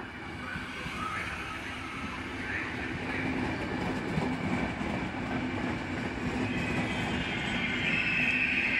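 Regional push-pull train of low-floor passenger coaches, pushed by an E464 electric locomotive, rolling past close by with wheels clattering on the rails. It grows steadily louder, and a higher hiss-like ring builds near the end.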